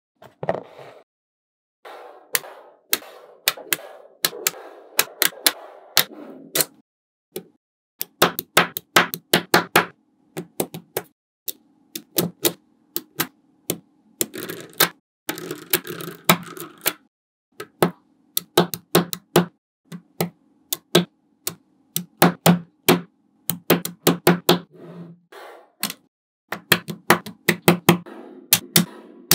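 Small magnetic balls clicking and snapping together in quick clusters as strips of them are pressed onto a wall of balls, with short pauses between the clusters.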